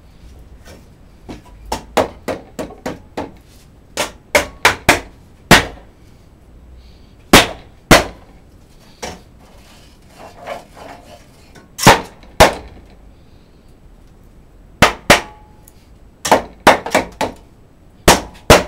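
Sharp knocks and clacks at a wooden pole lathe. They come in irregular bunches of two to six quick blows with short pauses between.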